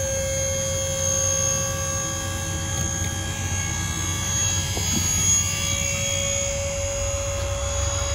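Dump trailer's electric-hydraulic pump running steadily to raise the bed, a constant whine over a low hum.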